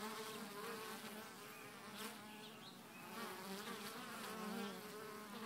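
Honey bees buzzing as they fly in and out of a hive entrance, their hum swelling and fading as single bees pass close by.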